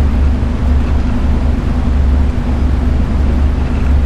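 A loud, steady low rumble with a faint hum above it, wavering slightly in strength.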